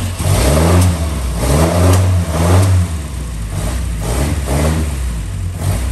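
The Panther's Vauxhall 2.3-litre four-cylinder engine, just started after sitting unused a while, is blipped up about five times and then settles to a steady idle near the end.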